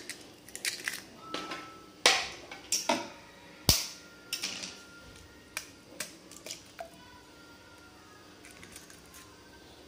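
Eggs being tapped and cracked open against the rim of a steel bowl: a string of sharp clicks and knocks with shell crackling, the loudest a little under four seconds in. The clicks stop about seven seconds in.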